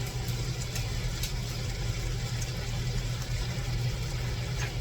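A steady low machine hum with a few faint light clicks.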